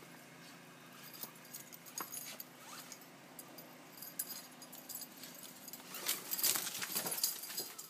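A dog moving about in snow: scattered crunches and clinks, busiest and loudest from about six seconds in.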